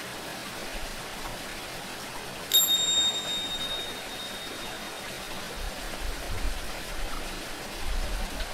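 Tingsha cymbals struck once about two and a half seconds in, a high, bright ring that fades over a second or two, over a steady hiss of water. A low rumble comes in over the last few seconds.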